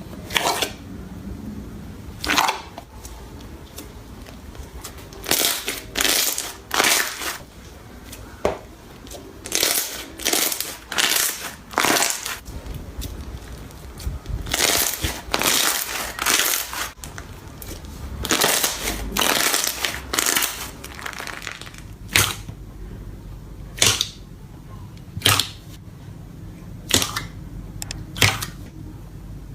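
Slime being handled: squeezed, pressed and pulled, giving irregular short noisy bursts and sharp pops every second or two.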